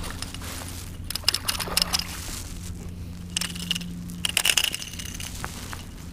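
A small speckled trout splashing at the surface while a spinning reel is cranked to bring it in, heard as clusters of short crackles and clicks over a steady low hum.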